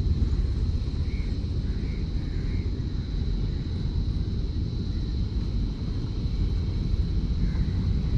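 Steady low rumble of a train approaching in the distance: steam locomotive B2B 213 with its coaches, pushed by a diesel at the rear. A few faint bird chirps come and go, over a thin steady high whine.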